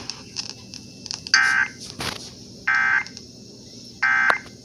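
Three short bursts of Emergency Alert System (SAME) data tones, evenly spaced a little over a second apart, over faint radio hiss: the end-of-message code that closes an EAS alert broadcast.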